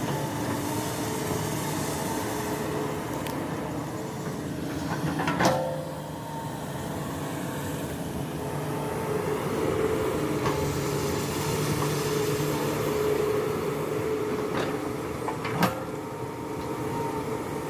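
Hydraulic excavator's diesel engine running steadily while it works soil, with two sharp metallic clanks with a short ring, about five seconds in and near the end.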